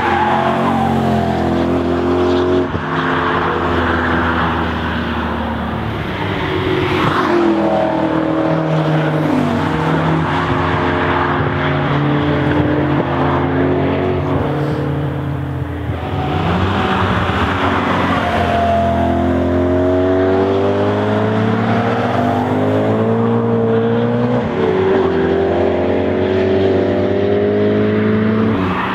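Tuned BMW M3 E90's V8 through a custom exhaust, revving hard as it climbs through the gears: pitch sweeps up again and again, dropping back at each shift, as the car drives past on the track.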